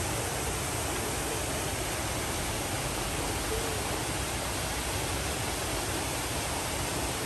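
A small waterfall and the stream below it: a steady, even rush of falling and running water.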